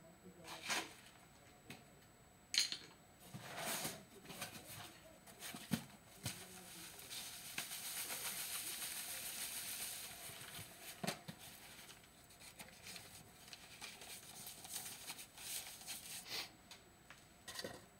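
Faint scattered knocks and clinks of containers and utensils being handled while a plaster mix is measured out, with a steady hiss for about three seconds in the middle.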